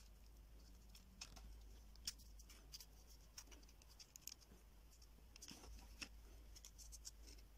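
Faint, scattered small clicks and light taps of craft pieces being handled and set down on a tabletop, the sharpest about two seconds in and again about six seconds in, over near-silent room tone.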